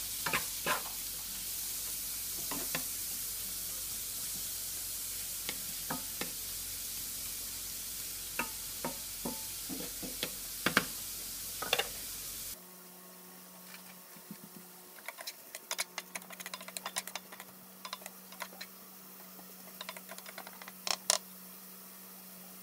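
Shrimp sizzling in oil in a nonstick frying pan, stirred with a wooden spatula that clicks and knocks against the pan. About twelve seconds in the sound cuts abruptly to a quieter sizzle with scattered pops and crackles and a faint steady hum.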